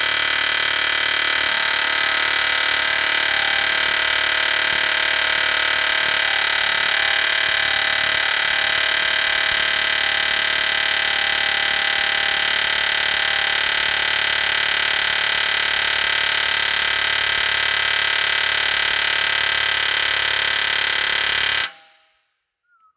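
Long-stroke pneumatic air hammer with a chisel bit hammering continuously on a stubborn steel frame rivet of an M35A2 truck, a loud steady rattling buzz that cuts off suddenly near the end.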